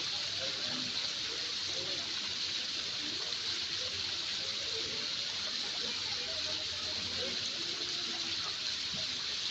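Waterfall's steady rush of falling water, with faint voices underneath.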